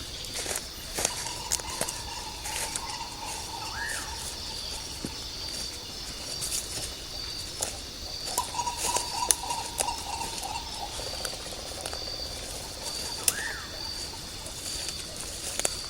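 Jungle ambience: insects trilling steadily in a high pulsing chirp, with scattered sharp clicks and crackles. Two drawn-out lower trills last a few seconds each, and two short rising animal calls come about nine seconds apart.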